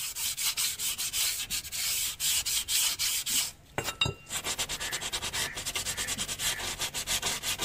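Hands rubbing and wiping brake dust off a car's rear brake drum and then its brake shoes: a run of fast, scratchy rubbing strokes, with a short metallic clink about four seconds in.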